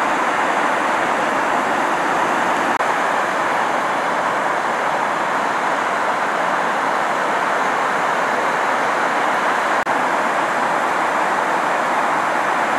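Steady roar of breaking surf on a rough sea, an even wash of noise without pause.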